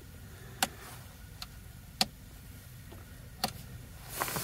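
Five or so sharp clicks, roughly a second apart, as the buttons on a Bluetti AC50S portable power station are pressed to switch it on.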